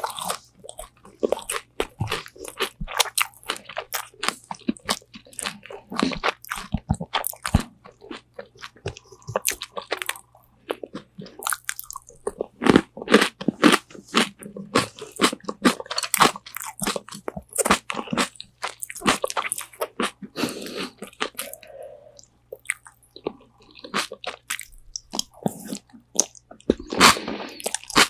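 Close-up eating of crispy Korean fried chicken wings: bites into the crunchy coating followed by chewing, a dense run of irregular crackling crunches heard close on a binaural microphone.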